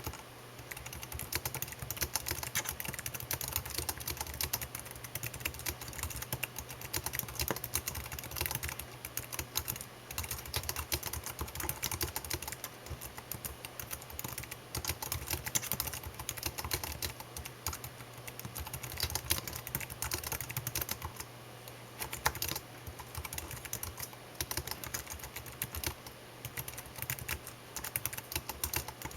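Fast, continuous typing on a computer keyboard, a dense run of key clicks with a few brief pauses, over a faint steady low hum.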